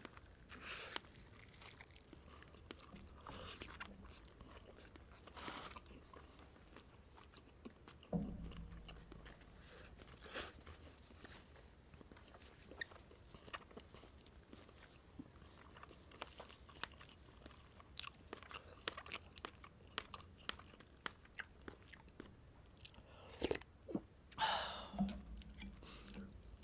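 A person eating at close range: irregular chewing and biting with small crunches and mouth clicks, and a few louder bursts near the end.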